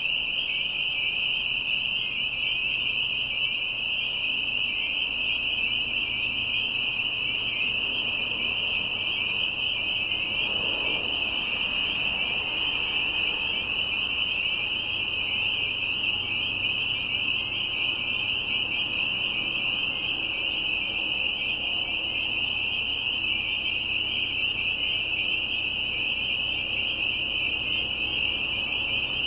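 Spring peepers calling in a dense, continuous, shrill chorus at a wetland. A faint low rumble swells briefly near the middle.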